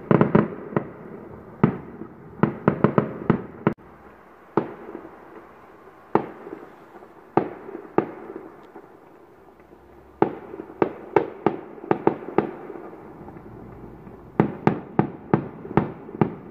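Fireworks going off: sharp bangs, some single and some in quick runs of several a second, over a continuous background rumble.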